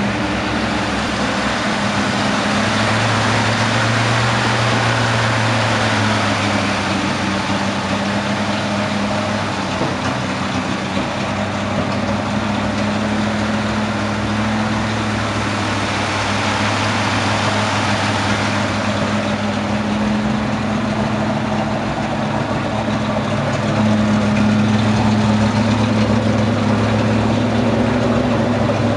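A 1960s Chevrolet pickup's engine idling steadily with the hood open, growing a little louder near the end.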